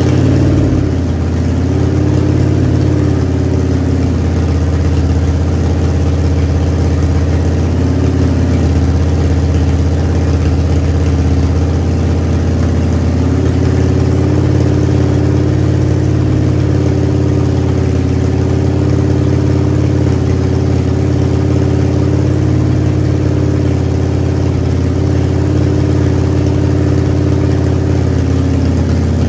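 Carbureted Harley-Davidson Evolution V-twin of a 1994 Heritage Softail Nostalgia running at a steady idle through Samson exhaust pipes, its pitch shifting slightly now and then.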